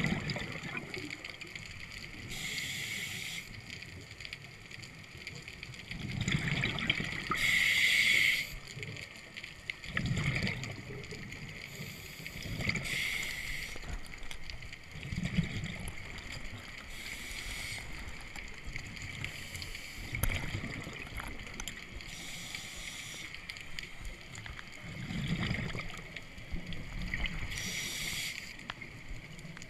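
Scuba diver breathing through a regulator underwater: short hissing inhalations every few seconds, each followed by a low rumble of exhaled bubbles.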